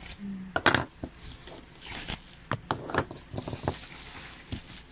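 Hard plastic marker stand being handled and set down amid crinkling bubble wrap: a string of sharp plastic clicks and knocks with rustling.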